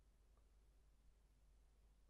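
Near silence: faint room tone, with one barely audible tick about a second in.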